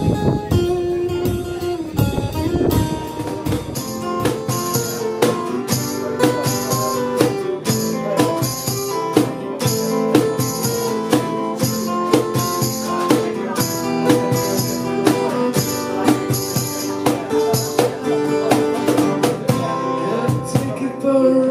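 Instrumental passage of live acoustic band music: two acoustic guitars strumming chords over a steady cajon beat, with a crisp high percussive hiss on many of the beats.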